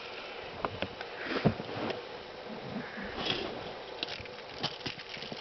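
Scattered knocks and handling noises in a small boat, with one dull thump about one and a half seconds in, and short breathy sniffs.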